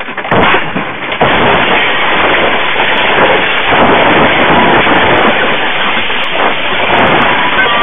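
A bus crashing at highway speed: heavy impacts in the first second or so, then a long, continuous loud din of the wreck sliding, with debris and glass flying around the cab as it slows.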